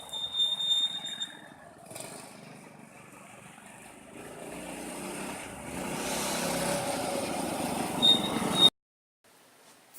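Predator 212 single-cylinder go-kart engine running on a test run: the engine note falls at the start, fades for a couple of seconds, then grows louder again from about four seconds in before cutting off suddenly near the end.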